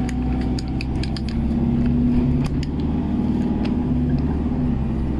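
Engine and road noise of a moving van heard from inside the cabin: a steady low rumble with an engine hum that rises a little in the middle, and faint scattered ticks and rattles.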